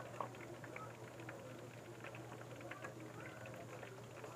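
Coated chicken pieces frying in hot oil in a wok, the oil sizzling with a dense patter of small crackles, and one sharp click just after it begins.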